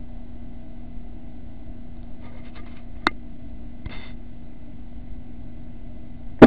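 Steady low hum throughout. A sharp click comes about three seconds in, with brief rustling before and after it. A loud, sharp air rifle shot comes at the very end.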